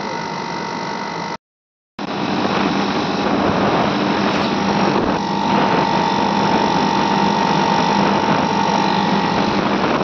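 Window air conditioner running with its compressor on while refrigerant is charged into it: a steady hum and rushing noise. The sound drops out for about half a second near the start, and a faint steady whine comes in about halfway through.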